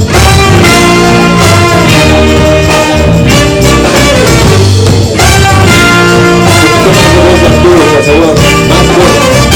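Live band playing an instrumental passage of a reggae-ska song, with sustained melodic lines over a steady bass line.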